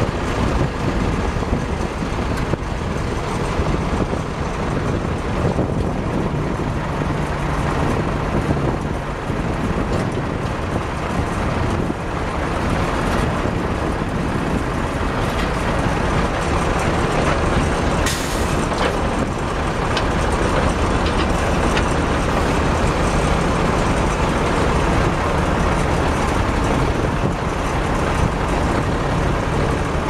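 Case 4-390 four-cylinder diesel engine of a 1989 Case 480E backhoe loader running steadily while the backhoe hydraulics lower the stabilizer legs and swing out the boom and bucket.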